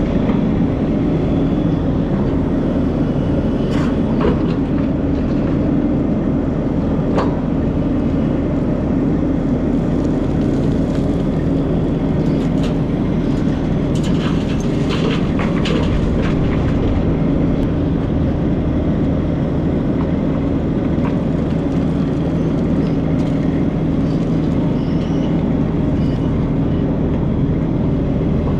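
Diesel engine of a Takeuchi TB2150 excavator running steadily while loading dump trucks, with a few short clicks and knocks scattered through.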